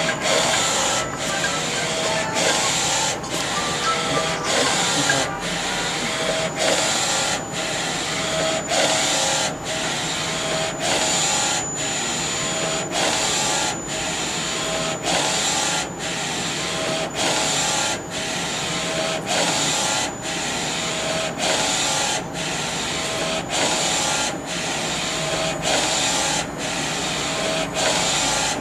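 NC-610A direct-to-garment printer's print-head carriage running back and forth while printing, a steady mechanical whir with a faint high whine. It breaks off briefly in a regular rhythm at each reversal of the carriage, about every two-thirds of a second.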